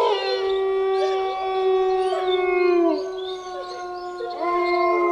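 Sound-effect howls of a wolf-like creature: several long howls overlap and are held steady. One tails off downward about three seconds in, and a new howl rises in after about four seconds.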